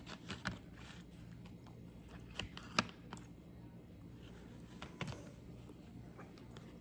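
Eating sounds: scattered light clicks and taps of utensils and food, about seven in all, the loudest near three seconds in.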